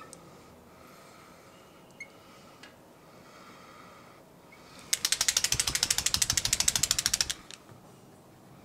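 Marker chattering as it is dragged across a glass lightboard, a fast ratcheting rattle of about twenty clicks a second. It starts about five seconds in and lasts a little over two seconds, with a few faint taps of the marker on the glass before it.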